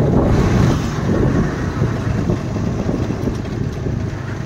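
Engine of a small two-wheeler running steadily while being ridden, with a noise haze over it that is a little louder in the first second.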